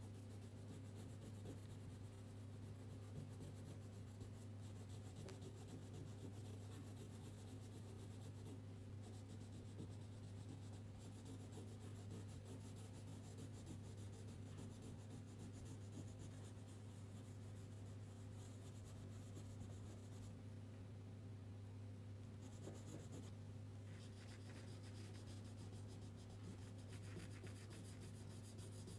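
Crayon rubbing back and forth on paper as a page is coloured in, faint and scratchy, over a steady low hum.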